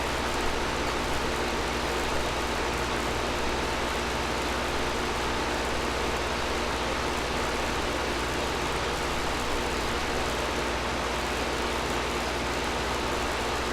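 Air conditioner running steadily: an even rush of blown air over a low hum, with a faint steady tone.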